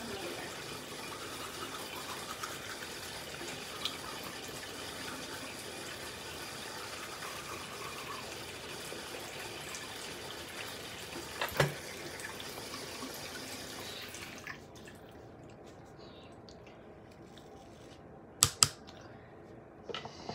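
Water running steadily from a tap, a steady hiss that stops about two-thirds of the way through. A sharp knock comes midway, and two more follow close together near the end.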